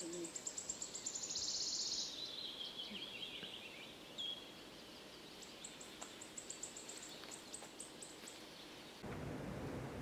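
Wood warbler singing: a run of very high ticking notes that speeds up into a shivering trill and slides down in pitch, then a second run of high ticking notes starts about five and a half seconds in.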